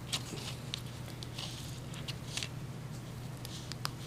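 Faint scattered rustles and small ticks of a cut-open ear candle being handled, with one sharper tick near the end, over a steady low hum.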